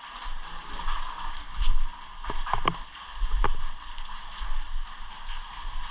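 Water sloshing and splashing, with a few sharp knocks in the first half.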